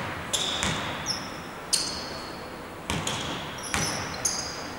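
A basketball bouncing on a hardwood court, several sharp bounces roughly a second apart, each ringing briefly in the hall. Brief high sneaker squeaks on the floor come between them.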